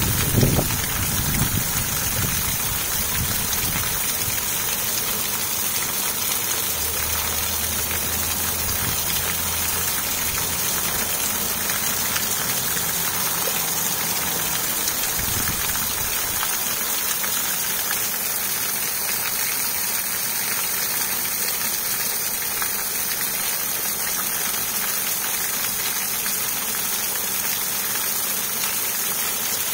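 Garden pond waterfall running, its water splashing and spraying onto the pond surface with a steady hiss. A few low thumps sound near the start.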